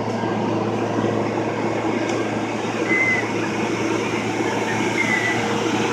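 Steady low drone of a car ferry's engines under way, mixed with a rushing wash of wind and water. Two short high squeaks come about three and five seconds in.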